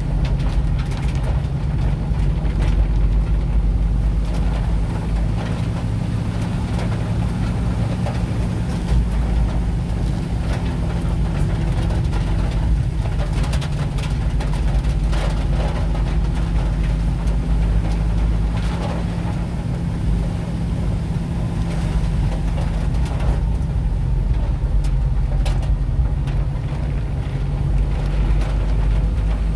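Inside a moving vehicle on a wet road: steady low engine and road rumble with tyre noise, with a few short ticks now and then.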